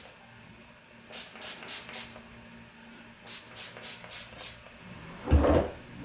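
Spray bottle misting water onto hair: two quick runs of short, faint spritzes, about three a second, four in the first run and about five in the second. Near the end comes a short, louder sound with a low thump.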